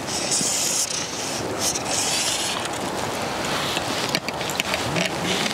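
Steady outdoor wind and river-water noise, its hiss swelling and fading every second or so, with a single brief click about four seconds in.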